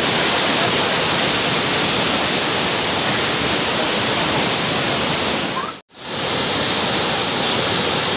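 Floodwater rushing steadily in a continuous loud wash of noise, which cuts out for a moment about six seconds in and then resumes.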